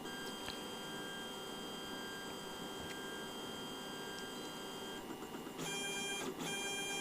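Lulzbot Mini 3D printer running, with a steady whine made of several high pitches over a faint hiss. The pattern shifts briefly about five seconds in.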